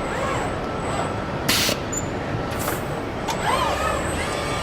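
Car-factory production-line machinery: a steady mechanical din with motor whines that rise and fall in pitch twice, and a short burst of compressed-air hiss about a second and a half in.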